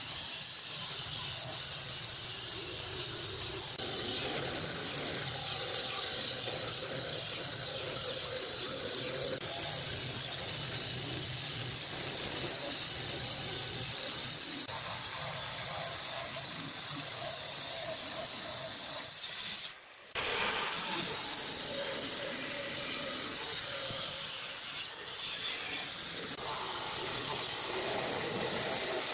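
Handheld electric stone cutter running and cutting wet through a black granite slab, a steady grinding hiss. The sound drops out briefly about two-thirds of the way through.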